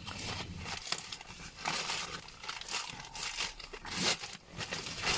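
Irregular crinkling and rustling close to the microphone, a run of short scratchy rustles of clothing or plastic being handled.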